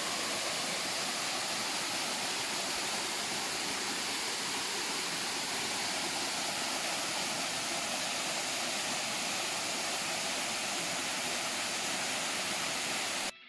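Waterfall rushing steadily, an even roar of falling water. It cuts out briefly near the end.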